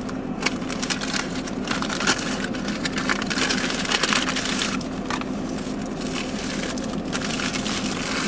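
Aluminium foil wrapper crinkling and crackling as it is unwrapped from a breakfast sandwich, over a steady low hum.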